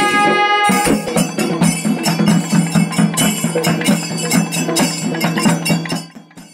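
Kombu, the long curved brass horns of a Kerala temple orchestra, sounding a held note. About a second in, this gives way to a Velakali percussion ensemble playing a fast, even beat over a steady low note. The music fades away near the end.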